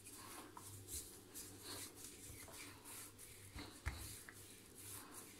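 Faint rolling and rubbing of a wooden rolling pin over pastry dough on a granite countertop, with a couple of light knocks about two-thirds of the way in.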